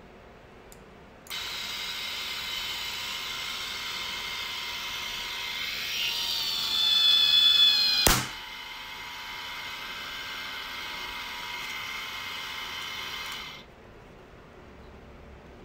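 12 V 20 RPM geared DC motor whining as it winds fishing line onto a spool against a load cell. It starts about a second in and grows louder as the line tension builds. A sharp snap about eight seconds in is the line breaking; the motor then runs on more quietly, unloaded, and stops a few seconds later.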